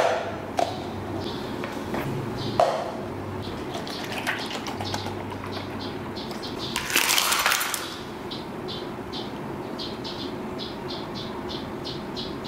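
Drink-making sounds at a counter: a plastic cup knocked down on the countertop, a few light knocks, then ice cubes clattering into the cup for under a second about seven seconds in. After that comes a run of short high chirps, about three a second.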